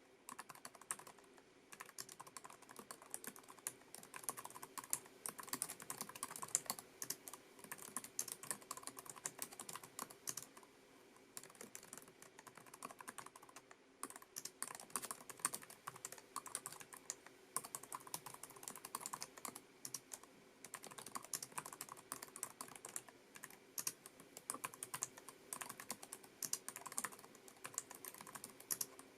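Continuous typing on a Lenovo ThinkPad TrackPoint Keyboard II's low-profile scissor-switch keys: a rapid, irregular run of light key clicks, broken by a few short pauses.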